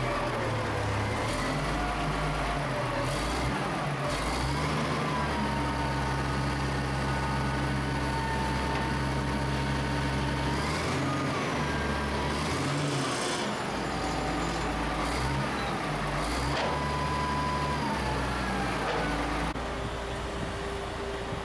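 Diesel engines of snow-removal motor graders running, their pitch rising and falling several times as the revs change. Near the end the sound changes to a steadier engine note.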